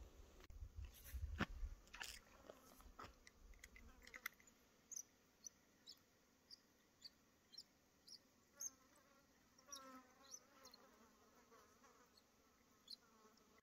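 Faint, nearly silent outdoor quiet: a few soft knocks early on, then light ticks about twice a second, with an insect buzzing briefly around the middle.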